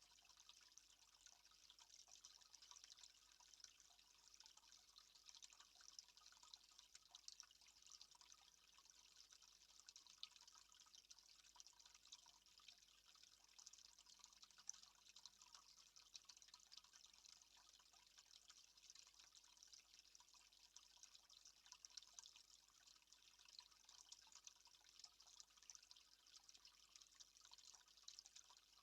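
Near silence: a faint, steady water sound, an even hiss full of tiny ticks, like trickling and dripping water.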